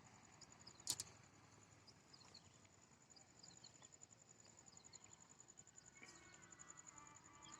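Faint outdoor ambience: a steady, rapid high insect trill with scattered short high chirps. There is a sharp click about a second in, and a faint tone with several pitches from about six seconds in.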